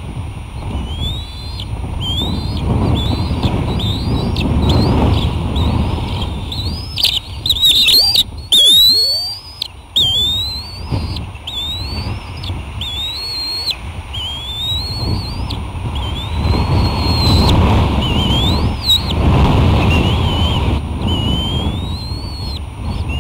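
Bald eagles calling: a run of short, high-pitched rising chirps, about one a second, with wind rumbling on the microphone. A loud burst of flapping and rustling comes about 7 to 9 seconds in.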